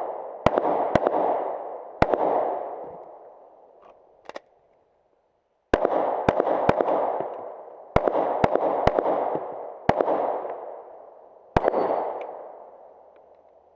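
Pistol shots fired in quick strings, each trailing a long echo. About four come in the first two seconds. After a pause of several seconds, about nine more follow in groups of two or three, the last one near the end.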